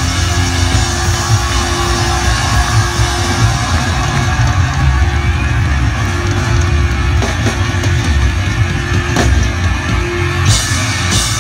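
Live rock band playing loudly: a drum kit and electric guitar.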